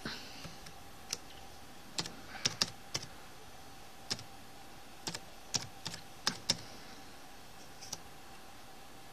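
Computer keyboard keys pressed one at a time, slow and irregular, about a dozen keystrokes, over a faint steady hum.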